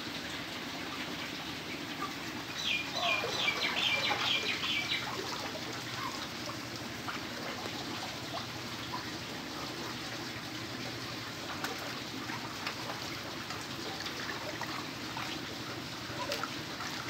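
Shallow water sloshing and dripping as a hand net scoops pangas fingerlings and tips them into a plastic basin, with a low steady hum underneath. A bird chirps in a quick run of short high notes about three to five seconds in.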